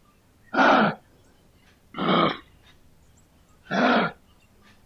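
Kangaroo giving short, harsh grunting coughs, three of them, each about half a second long and spaced about a second and a half apart.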